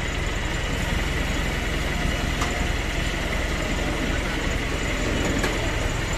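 Flatbed tow truck's winch and engine running steadily while the winch cable slowly lets a pickup down the tilted bed, a steady whine over a low, even rumble.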